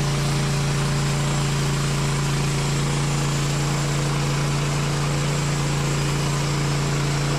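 Woodland Mills HM130 MAX sawmill's gas engine running steadily at an even, unchanging pitch.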